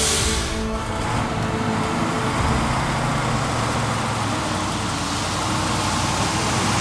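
KAMAZ dump truck's V8 diesel engine running as the truck moves slowly along, loaded with rebar, getting a little louder as it comes closer. A brief hiss right at the start.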